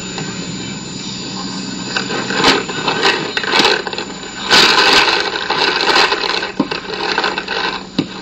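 Scuffing, rubbing and sharp knocks from a paintball player's gear as they move and crouch among inflatable bunkers. The knocks are scattered through the second half, with the loudest burst about halfway through, over a steady low hum.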